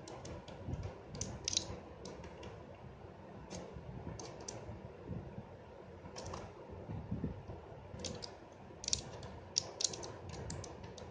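Faint, irregular small clicks as a medicine blister strip is slid along the seam between a OnePlus 5T's aluminium back panel and frame to pry the tightly fitted panel loose. The clicks are sparse at first and come thicker near the end.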